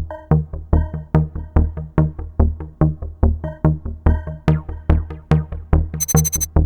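Electronic background music with a steady drum-machine beat, about two to three hits a second, under synth tones. It starts abruptly, and a short high-pitched trill comes in about six seconds in.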